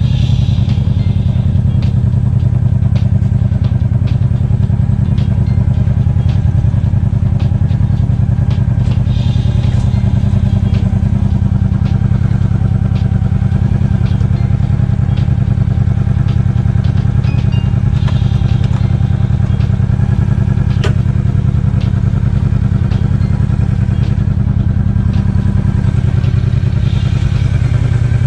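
Cruiser motorcycle engine running steadily at low revs, with no revving, and a few light clicks over it.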